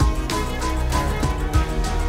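Music with deep bass and drum hits.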